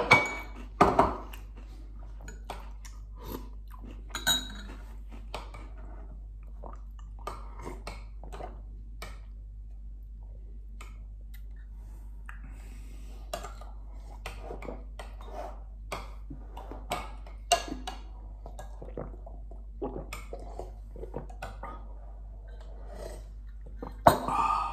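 A metal spoon clinking and scraping against a bowl at irregular intervals, with chewing in between. The sharpest clinks come about a second in and near the end.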